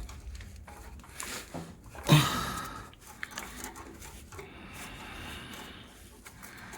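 Man breathing hard with effort, with one loud grunt about two seconds in, while straining to force a seized rubber exhaust mount off.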